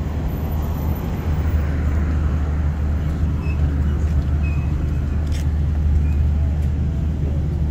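Steady low hum of a running engine under general outdoor street noise.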